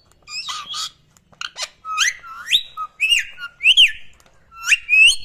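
Pet parrot whistling: a run of short whistled calls, most gliding sharply upward and a few rising then falling, with harsher squawky notes at the start.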